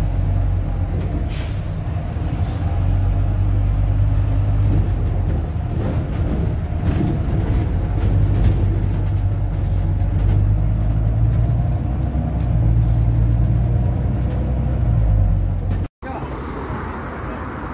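Double-decker bus engine running, a steady low drone heard from inside the bus cabin. About sixteen seconds in it cuts off abruptly to quieter street noise beside the bus.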